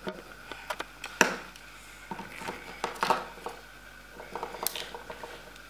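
Chocolate shell of a Kinder Surprise egg cracking and snapping as small hands pull it apart to free the plastic toy capsule inside: a few separate sharp cracks among faint handling clicks.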